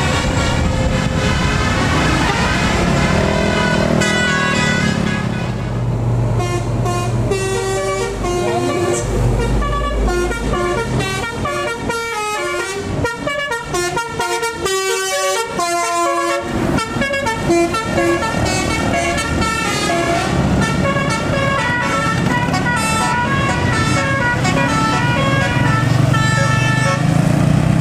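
A tour bus's telolet Basuri musical horn playing a tune of stepped horn notes, with quick short notes in the middle, over the bus's engine running.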